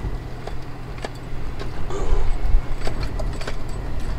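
A car's cabin while driving over a rough road: a steady low rumble of engine and tyres, with frequent short knocks and rattles from the bumps, loudest a couple of seconds in.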